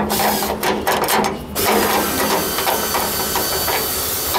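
Hand screwdriver backing the steel screws out of a car's trunk-lid latch: quick, irregular ratchet-like clicking of tool and screw. From about a second and a half in, a steady hiss sits under the clicks.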